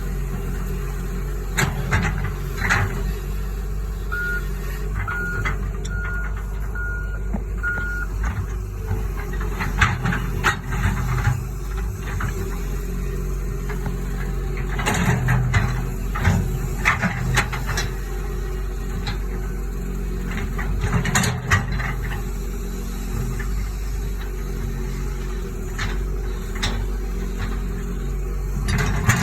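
Cat 315 LC hydraulic excavator's diesel engine running steadily under work. A travel alarm beeps about five times near the start, and knocks and clanks sound at intervals throughout.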